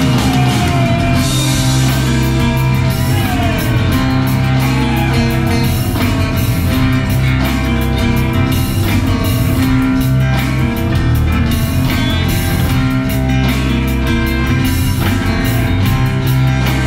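Live band playing an instrumental passage: acoustic guitars, fiddle, electric bass, drum kit and organ, with a steady beat and sustained bass notes.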